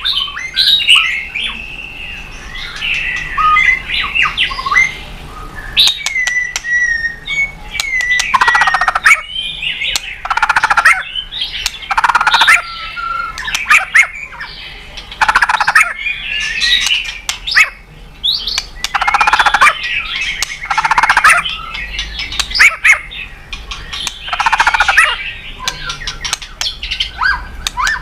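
White-rumped shama (murai batu) singing on and on: a quick run of varied phrases, clear whistled notes mixed with harsh, scratchy chattering and sharp clicks, in bursts a second or two apart.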